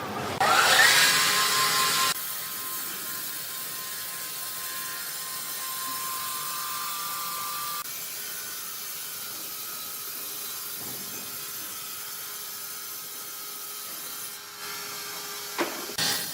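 Wood-processing machinery running with a steady mechanical clatter and hum. About half a second in comes a louder burst with a rising whine that stops abruptly near two seconds, and the sound shifts suddenly a few more times.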